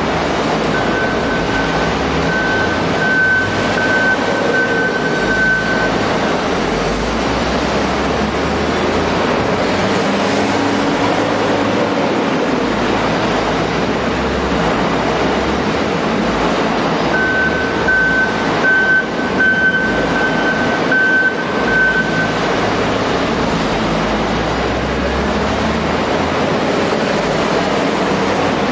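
Volvo wheel loader's diesel engine running amid a steady din of heavy machinery. Its high reversing alarm beeps for about five seconds near the start and again for about five seconds past the middle.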